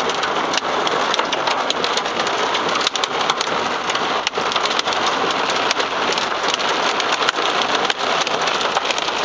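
Heavy rain pelting a car's windshield and roof, heard from inside the car: a steady dense hiss full of sharp drop impacts.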